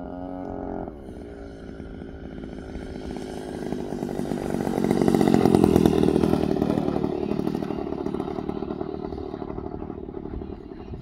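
Radio-controlled aerobatic plane's gas engine and propeller at low throttle as it lands and rolls along the runway. A brief rise in engine pitch at the start, then it grows louder to its loudest about five to six seconds in as it rolls closest, and fades as it rolls away.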